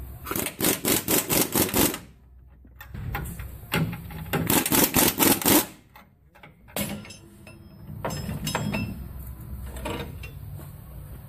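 An impact wrench rattling in two short bursts as the leaf-spring U-bolt nuts come off, followed by scattered metal clanks and taps.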